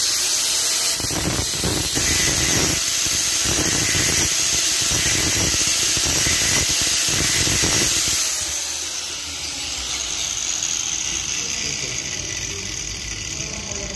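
Angle grinder with an abrasive cut-off disc running and cutting through steel threaded rod: a loud, steady grinding with a high motor whine. The grinding stops about eight seconds in, leaving a quieter noise.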